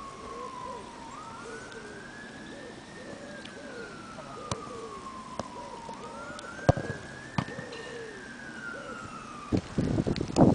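Emergency-vehicle siren wailing, its pitch rising and falling slowly over several seconds at a time. A few sharp thuds of footballs being struck cut through it, the loudest a little past the middle and near the end.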